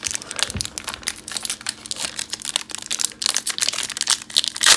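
A crinkly trading-card pack wrapper being handled and torn open, giving dense irregular crackling with a louder burst near the end.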